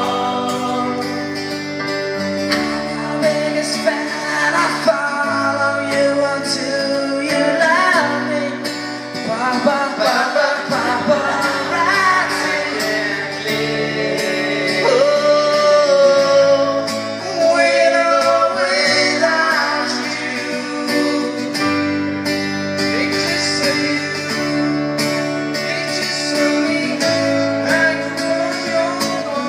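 Live male vocal group singing into microphones with acoustic guitar over a repeating chord progression, performing a four-chord pop-song medley.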